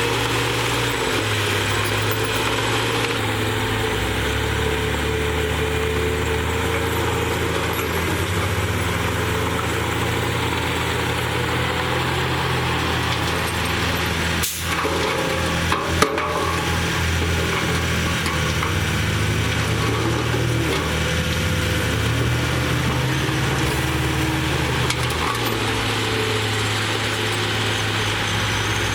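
Diesel engine of a Komatsu D58E bulldozer running steadily under work, its low drone stepping up and down in pitch a few times. A brief dropout and a sharp click come about halfway through.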